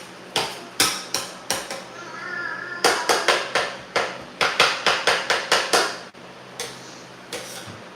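Metal kitchen utensil knocking repeatedly against cookware: sharp clinks with a short ring, in quick runs of about two to three a second, stopping near the end.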